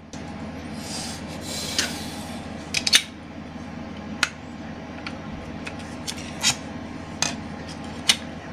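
Plastic top cover and rubber vent caps of a sealed lead-acid battery being handled and pressed into place: a run of scraping and rubbing with a handful of sharp plastic clicks.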